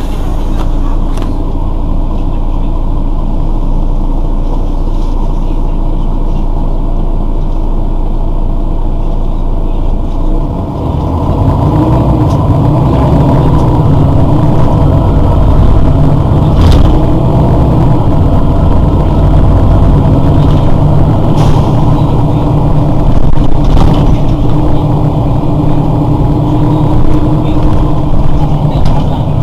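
Mercedes-Benz Citaro city bus's rear-mounted diesel engine idling at a stop. About ten seconds in it grows louder and deeper and stays that way.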